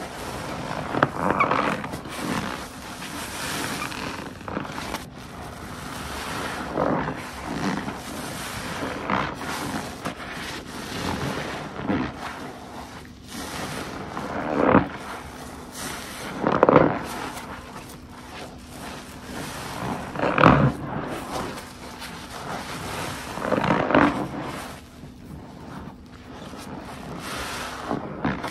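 A sponge soaked with detergent is squeezed by hand over and over, giving about a dozen wet squelches a few seconds apart.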